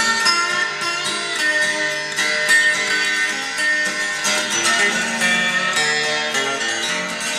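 Instrumental guitar music, the opening of a song before the vocals come in: plucked and strummed notes at a steady level.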